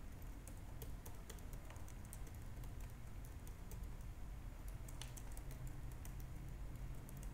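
Computer keyboard typing: a run of quick, irregularly spaced key clicks, over a steady low hum.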